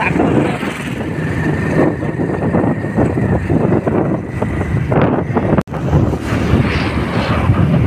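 Wind rushing over the microphone on a moving motorcycle, with road and engine noise underneath. The sound cuts out for an instant about two-thirds of the way through.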